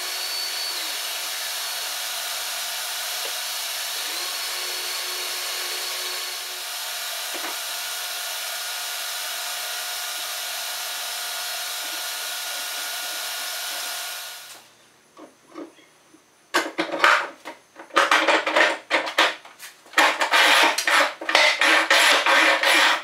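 Oscillating spindle sander running steadily as a wooden vise jaw is pressed to it, widening 20 mm guide-rod holes that a Forstner bit left undersize. It is switched off about two-thirds of the way through and runs down. Near the end comes a quick run of loud knocks and rattles.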